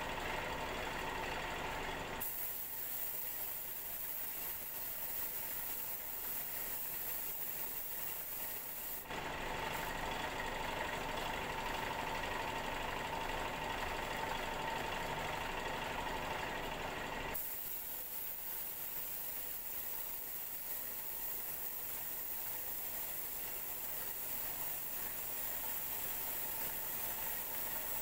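Paint spray gun hissing in two long spells, from about 2 to 9 seconds and from about 17 seconds on, as compressed air sprays the paint. Between them a steady motor hum with a faint held tone.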